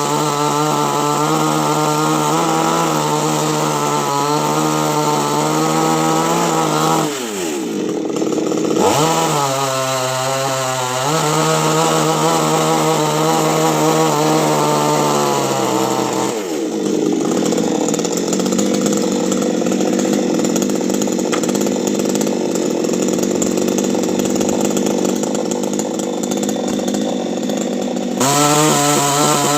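Chainsaw running at high revs, its pitch dropping about seven seconds in and climbing back, then dropping again past the middle into a rougher, lower-pitched stretch before revving back up near the end.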